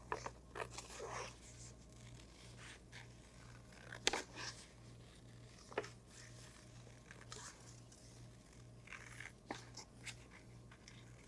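Scissors cutting slowly through painted paper, with faint paper rustling: scattered soft snips a second or more apart, the loudest about four seconds in.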